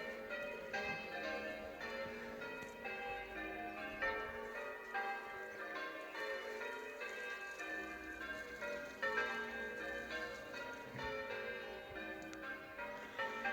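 Parish church bells pealing: a steady run of bell strokes, each tone ringing on under the next.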